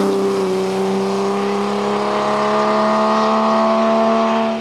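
Race car engine under hard acceleration, its revs climbing steadily in one long pull.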